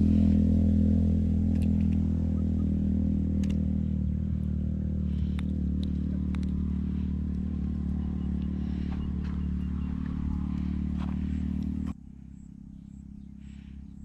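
A motor engine running steadily, slowly growing quieter, then cutting off abruptly about twelve seconds in.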